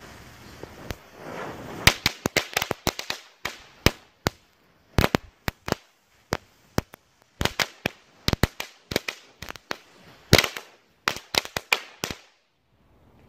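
Small Category 1 ground firework burning on the ground: a hissing spray of sparks, then rapid sharp crackling pops in clusters for about ten seconds, loudest near the end, stopping suddenly about twelve seconds in.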